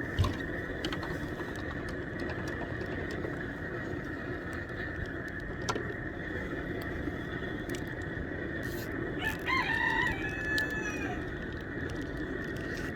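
A rooster crowing once, about nine seconds in, over a steady background hum.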